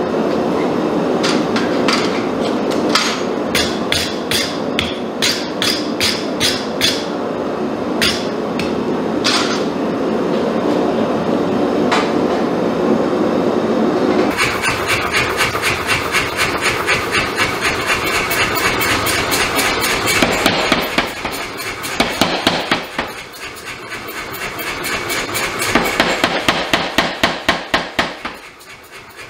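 A steady roar of shop machinery with scattered sharp metallic clanks, then about halfway a power hammer starts pounding red-hot damascus steel with rapid, even blows, in several runs that fade and build again near the end.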